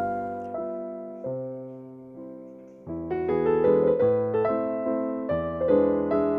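Background piano music: slow held chords that fade away, then from about three seconds in a busier passage of repeated notes and chords.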